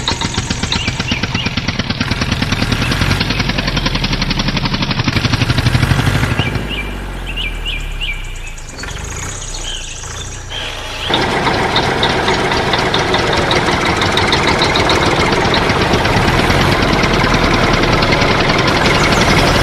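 Heavy vehicle engine running with a rapid, even pulse. It drops back about six seconds in and picks up again, louder, about eleven seconds in.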